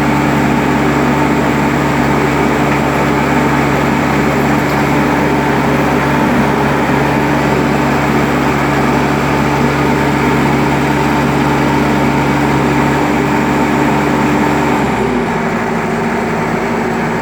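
Ajax Fiori Argo 4000 self-loading concrete mixer's diesel engine running steadily, then its revs drop to a lower, slower note about fifteen seconds in.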